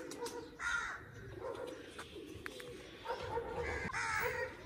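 Crows cawing: a call about a second in and a longer run of calls near the end, with other birds calling underneath.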